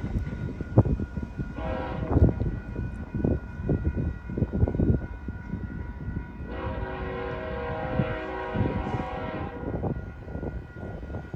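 Distant locomotive horn on a freight train: a short blast about two seconds in, then a long blast of about three seconds, over a low, uneven rumble.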